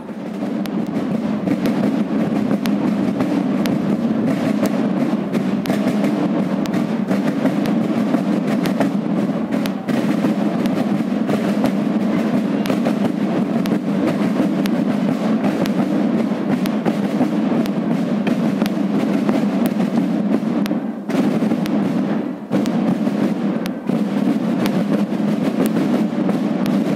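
A corps of marching side drums beating a rapid, continuous march rhythm together. The beat dips briefly twice about three quarters of the way through.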